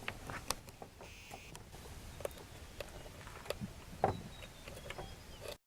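Scattered light clicks and taps from handling small parts and wiring, with a slightly louder knock about four seconds in; the sound cuts off abruptly just before the end.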